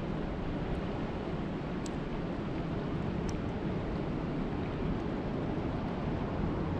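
Steady rushing noise of water, even and unbroken and heaviest in the low end, with two faint ticks about two and three seconds in.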